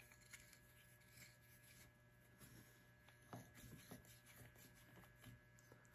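Near silence: room tone with a faint steady hum and scattered faint clicks and taps as a valve seat cutter is handled and fitted onto its steel mandrel by hand.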